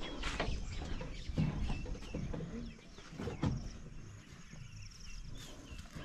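Hens clucking with small birds chirping, and a couple of soft knocks.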